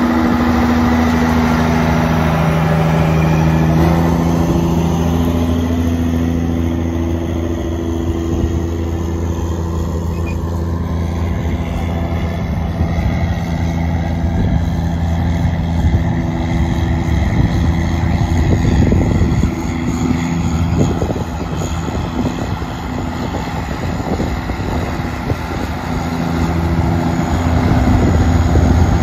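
300 hp CASE 4890 four-wheel-drive tractor's diesel engine running steadily under load while pulling an eight-bottom moldboard plow through the soil, a steady low drone that grows louder near the end as the tractor comes closer.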